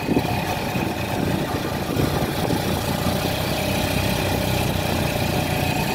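Tuk-tuk's small engine running steadily as it rolls along, heard from inside its open passenger cab.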